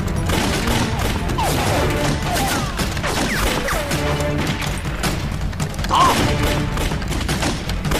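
Rifle volleys with dense, overlapping gunshots and blasts kicking up dirt, with soldiers yelling. A sharp shouted order to fire comes about six seconds in, all over a dramatic film score.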